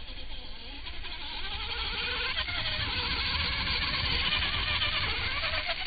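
Electric RC sand buggy on a 3S LiPo battery driving hard through sand: a wavering motor whine that rises and falls with the throttle over the hiss of its paddle tyres spraying sand, growing louder as it comes close.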